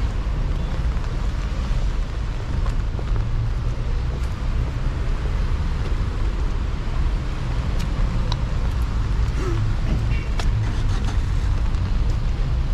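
Outdoor town-street ambience: a steady low rumble with a few faint clicks.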